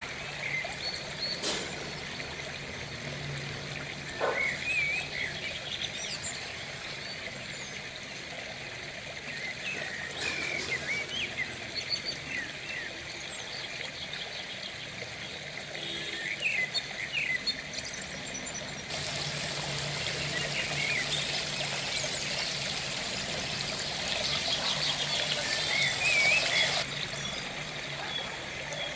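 Trickling, running water with scattered bird chirps; the water hiss grows louder for several seconds past the middle.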